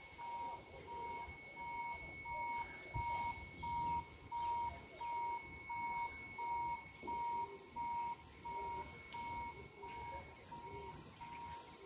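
An electronic beeper sounds a short, single-pitched beep over and over at an even pace, about three beeps every two seconds, over a steady thin high tone. Birds chirp briefly now and then.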